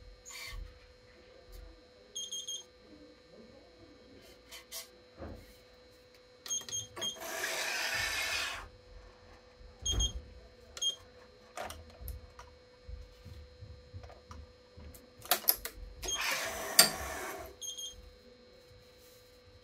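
Badminton string being drawn through the racket's frame and strings, two long rasping rubs about seven and sixteen seconds in, among light handling clicks. A few short electronic beeps from the Yonex ES5 Pro stringing machine's control panel, near the start and about ten seconds in.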